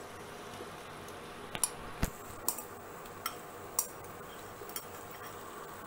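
A metal slotted spoon clinking and tapping against the dishes about six times, at irregular moments, while prawns are scooped from a bowl into the pan.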